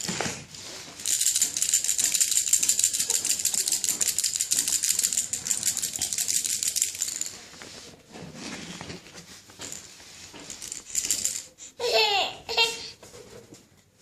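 A baby's hand rattle shaken quickly and steadily for about six seconds, then stopped. Near the end a baby cries out briefly, twice.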